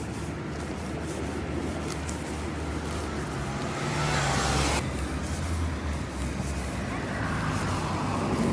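Street traffic: a steady low rumble of passing cars, with a louder rush about four seconds in that cuts off abruptly.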